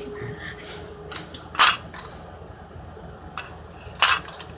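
Toy robotic arm at work: a faint steady motor whine through the first second, then two short harsh mechanical noises, about a second and a half in and again near the end.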